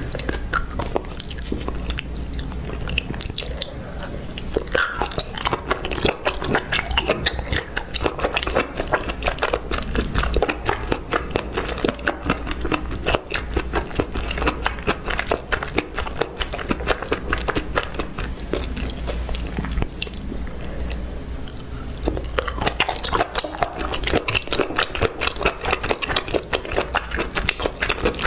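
Close-miked ASMR chewing: a person eating food with a mouth-filling crunch, a dense run of wet clicks and crunches that goes on without a break.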